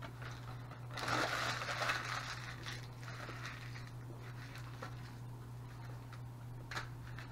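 Crinkling and rustling of a paper burger wrapper being handled: a burst of about a second and a half, then a few light clicks. A low steady hum runs underneath.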